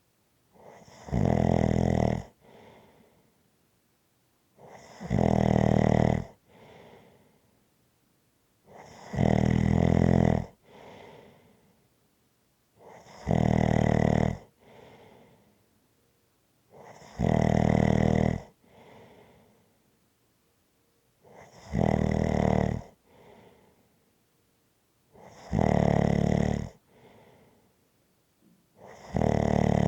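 Snoring in a slow, even rhythm: a loud snore about every four seconds, each lasting about a second and followed by a fainter breath.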